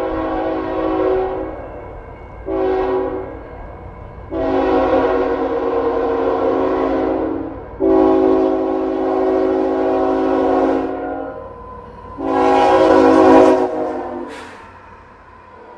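Freight diesel locomotive's air horn sounding a several-note chord in repeated blasts for the grade crossing: one blast ending about a second in, a short blast, then three long blasts, the last one the loudest as the locomotives pass close by. Underneath runs the low rumble of the approaching train.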